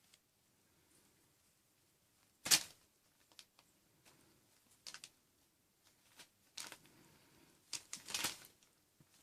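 Six-week-old kittens playing: irregular scuffles, taps and scrapes of small paws and bodies, the loudest about two and a half seconds in, with a cluster of them near the end.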